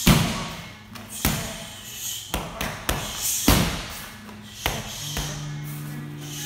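Kicks and punches smacking into handheld Thai pads, about eight sharp strikes at uneven intervals; the loudest is a kick right at the start. Background music runs underneath.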